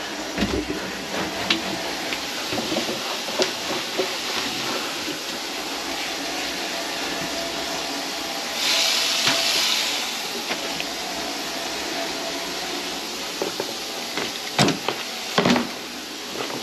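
Kitchen faucet running steadily, the water draining freely down the just-cleared sink drain line. Two sharp knocks near the end.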